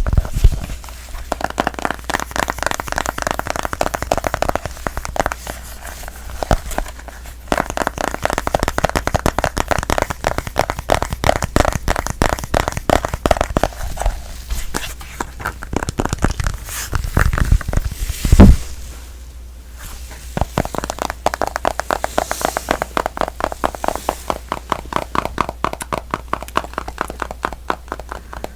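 Fingers tapping rapidly on a smartphone, many taps a second in long runs broken by short pauses, with a louder knock of handling the phone about two-thirds of the way through.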